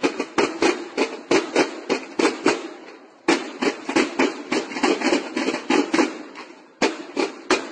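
Snare drums of a drum-and-bugle corps playing a cadence together: crisp strokes in a steady rhythm, breaking off briefly about three seconds in and again near the end.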